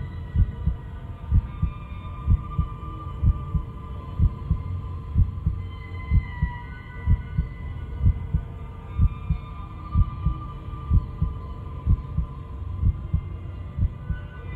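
Slow heartbeat in a soundtrack, a low double thump about once a second, over a steady droning hum with high held tones.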